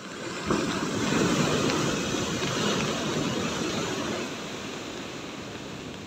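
Heavy storm surf: a big wave breaks and its foam rushes up the shore in a loud, rushing surge that swells about half a second in, peaks a second or so later, then slowly dies away as the water washes in.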